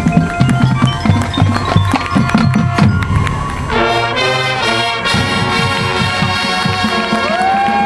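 High school marching band starting its show. For the first few seconds the drums play a beat alone, then the brass section comes in with loud held chords.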